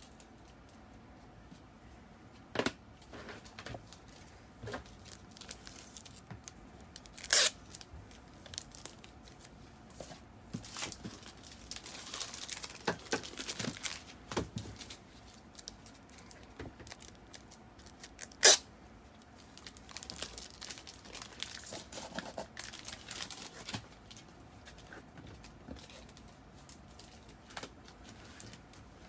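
Intermittent crinkling and rustling of handled packaging, with a few sharp clicks, two of them much louder than the rest.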